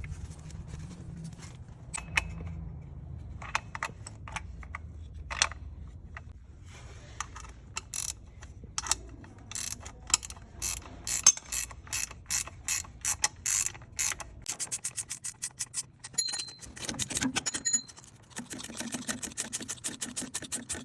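Ratchet wrench clicking in runs of quick, even strokes, sparse at first and faster near the end, as bolts are worked on the engine.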